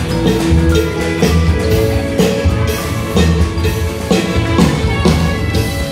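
Live band playing a song with a drum kit and guitars, with a steady beat.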